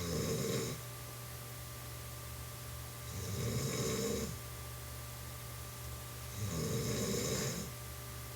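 A woman snoring in her sleep: a snore about every three seconds, each lasting about a second, over a steady low hum.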